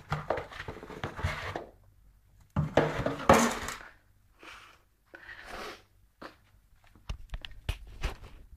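Cardboard box rustling and scraping in bursts as a cat shoves into it and moves about with it, ending in a run of short sharp taps.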